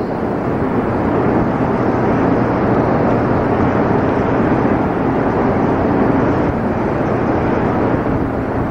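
A loud, steady rushing noise with no pitch to it, spread evenly from a low rumble up into hiss.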